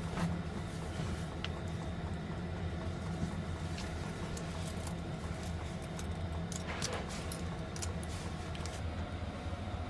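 Steady low rumble of a vehicle driving, heard from inside the cabin, with a few light clicks near the start, about a second and a half in, and about seven seconds in.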